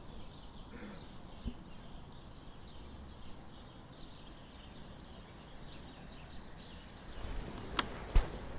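Faint outdoor ambience with distant small birds chirping, then a couple of sharp clicks near the end.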